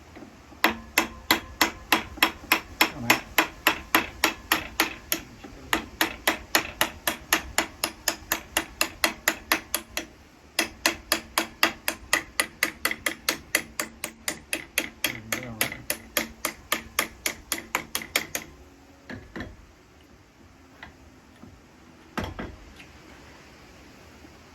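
Hammer blows on metal, a fast steady run of about three strikes a second with a ringing note, broken by two short pauses and stopping about eighteen seconds in; a few single knocks follow.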